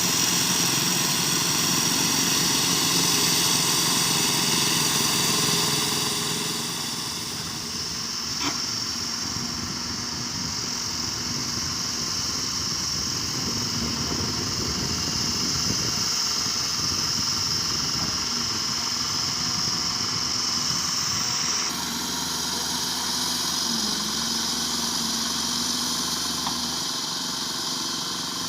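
Caterpillar 330 GC excavator's diesel engine running steadily. It drops somewhat in level about seven seconds in, and the sound changes abruptly about 22 seconds in.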